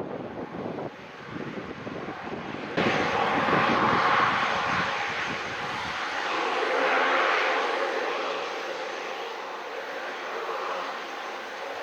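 Airliner engines, loud and starting abruptly about three seconds in, swelling twice and easing slightly toward the end; before that, wind on the microphone.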